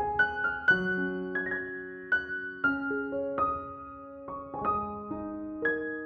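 Background piano music: a slow melody of single notes over held chords, each note struck and fading.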